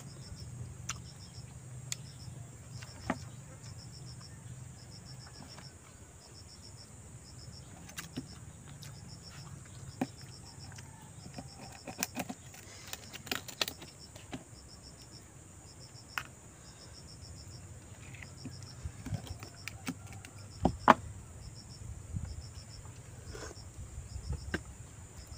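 Scattered sharp cracks and clicks of crab and oyster shells being broken open while eating, the loudest about 21 seconds in. Under them, insects keep up a steady chirping in short repeated trills.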